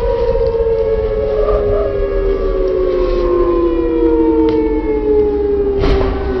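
Police sirens wailing: two tones overlap, both slowly falling in pitch, with two sharp knocks in the second half.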